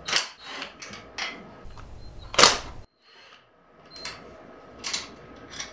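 A few sharp metallic clicks and clanks of tools and transmission parts being handled on the gear shafts. The loudest clank comes about two and a half seconds in.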